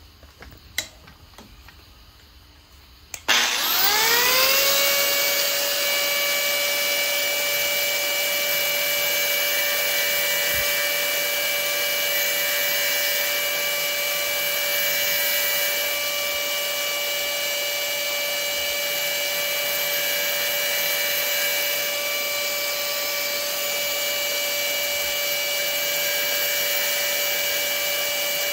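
High-speed electric rotary grinding tool switched on about three seconds in, spinning up within a second to a steady high whine that holds, used to grind the groove into a steel screw-in field point. A sharp click comes just before it starts.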